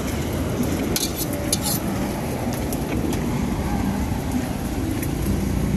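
Steady low rumble of street traffic, with a few light clinks of kitchen utensils or bottles between one and two seconds in.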